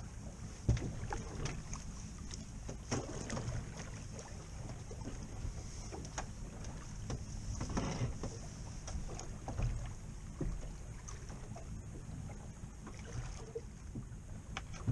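Wind buffeting the microphone over the low wash of choppy water against a small boat's hull, with scattered light knocks.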